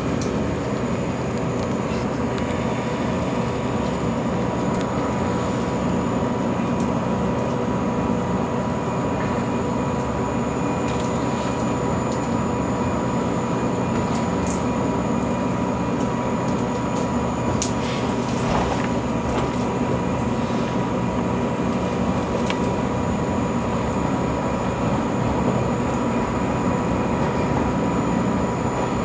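485 series electric train heard from inside the passenger car, running slowly along a platform: a steady low rumble with a faint constant hum and a few scattered light clicks, one sharper click about two-thirds of the way through.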